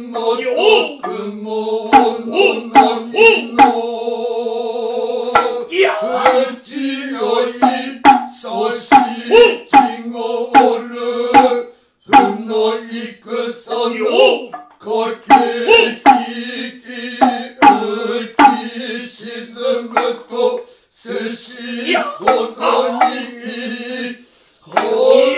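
Solo Noh chanting (utai) by a man's voice, with sharp strokes of a tsuzumi hand drum landing about once a second. The chant and drum break off briefly about twelve seconds in and again just before the end.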